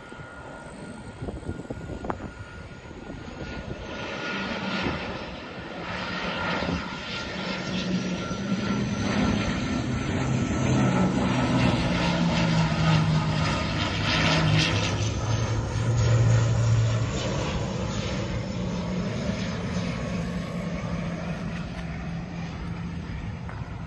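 Airliner passing low overhead on its landing approach. Engine noise builds over several seconds, with a low hum and a high whine, peaks about two-thirds of the way through, then slowly fades as the plane moves away toward the runway.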